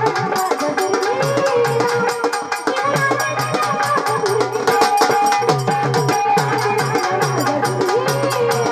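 A murali singing a Marathi folk devotional song in a high, bending melodic line, with a drum and clacking hand percussion keeping a steady beat.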